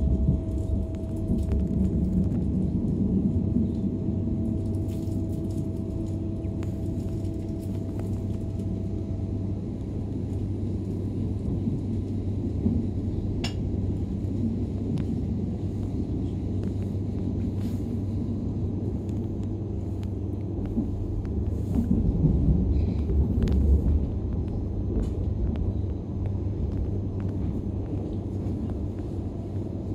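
Steady low rumble of a DB Class 425 electric multiple unit running, heard from inside the passenger car. A steady tone fades out about a third of the way in, a few sharp clicks and knocks come through, and the rumble grows louder for a couple of seconds about three-quarters through.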